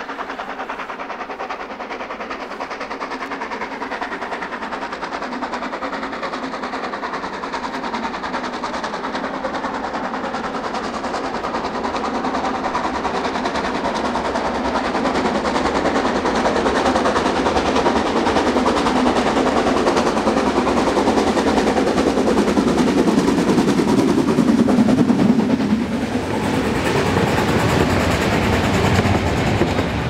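Harz narrow-gauge steam locomotive hauling a passenger train, its rapid exhaust beats growing louder as it approaches. Near the end the locomotive passes and the coaches roll by, wheels clattering on the rails.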